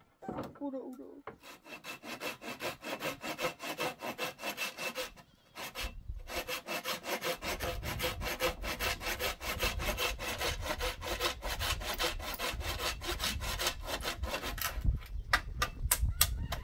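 Hand saw cutting through a wooden branch in quick, even back-and-forth strokes. It breaks off briefly about five seconds in, then ends with a few slower, separate strokes.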